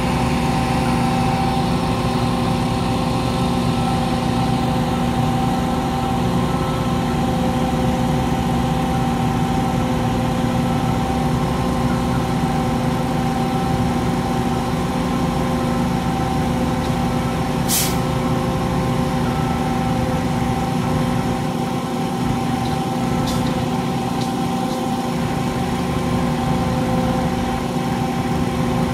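Heavy diesel engine of the lifting equipment running steadily at one constant speed. A short sharp hiss cuts in about two-thirds of the way through.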